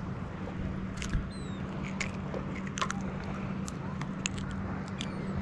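Handling noise while a small snapper is held and unhooked by hand: scattered light clicks and taps, over a steady low hum.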